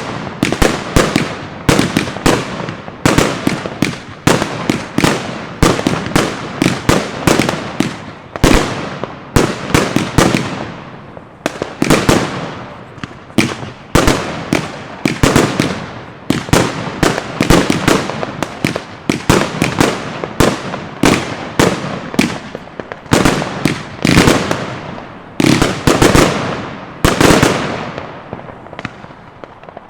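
Funke "Kamuro-Weißblinker" consumer firework batteries firing: a rapid, loud series of launch and burst bangs, about two a second, each with a short fading tail.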